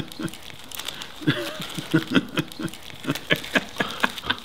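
Laughter: a run of short, choppy chuckles, several to the second.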